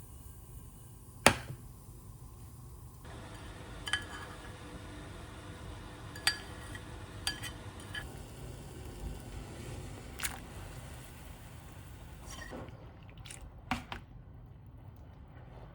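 Scattered sharp clicks and knocks of things being handled and set down, the loudest about a second in, over a low steady hum.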